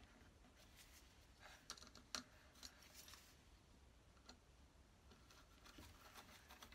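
Near silence with a few faint, scattered clicks and taps: small brass hinges, screws and a screwdriver being handled on a wooden box while the hinges are fitted.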